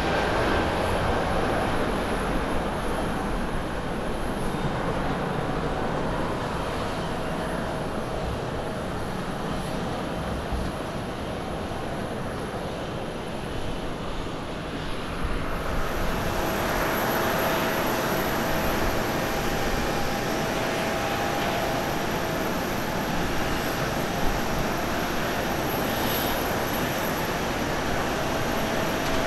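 Jet engines of an ANA Boeing 777-200ER climbing away after takeoff, a steady roar that slowly fades. About halfway through it gives way to the louder roar of a Japan Airlines Airbus A350-900's Rolls-Royce Trent XWB engines at takeoff power on the takeoff roll, with a steady high whine over it.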